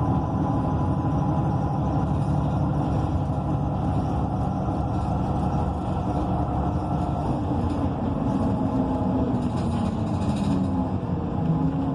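Interior cabin sound of an ENC EZ Rider II transit bus under way: its Cummins Westport ISL G natural-gas engine and Allison automatic transmission running with steady road noise. The engine note falls and then rises again near the end.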